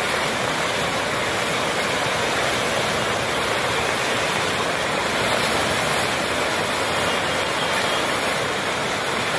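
Floodwater of a swollen river rushing and churning over rapids, a steady, unbroken noise.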